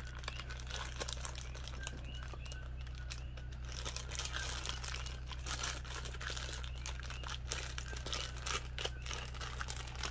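Thin plastic toy bag crinkling and crackling in irregular bursts as it is handled and pulled open by hand, over a steady low hum.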